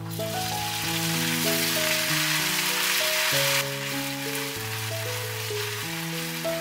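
Hot oil sizzling as sliced onions and ginger-garlic paste are stirred with a wooden spoon in a stainless steel pot. The sizzle is loudest for the first three and a half seconds, then drops off abruptly to a fainter sizzle. Background music plays throughout.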